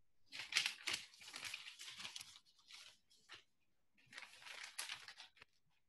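Paper crinkling and tearing faintly in two spells, the second starting about four seconds in, as a letter is opened and unfolded.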